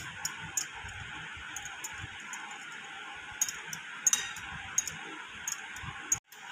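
Wire whisk beating eggs in a glass bowl, its tines clicking and clinking irregularly against the glass over a steady hiss. The eggs are already frothy and fluffy.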